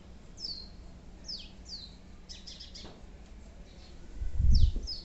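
Small birds chirping: short, high chirps that fall in pitch, repeated irregularly throughout. A low dull thump about four seconds in is the loudest sound.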